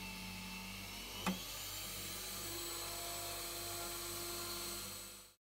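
Drill press motor running steadily while a small bit drills into a brass MIG welder contact tip held in a vise. There is one sharp click about a second in, and the sound cuts off abruptly near the end.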